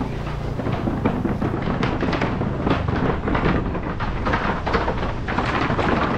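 Motorcycle riding over a wooden plank boardwalk: the boards clatter and knock under the tyres in a quick, irregular series, over the low running of the engine.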